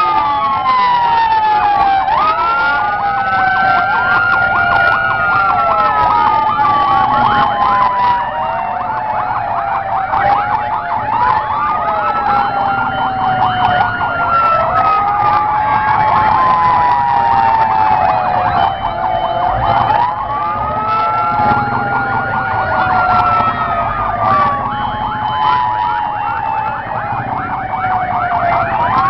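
Several fire truck sirens sounding together: slow wails rising and falling and overlapping each other, with a fast yelp mixed in through the middle.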